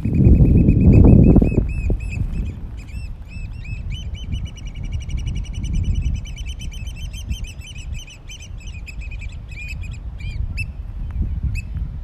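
American oystercatchers piping: a rapid run of high, arched notes, many a second, in a piping display. The notes thin to a few scattered calls near the end. A low rumbling noise is loudest in the first two seconds.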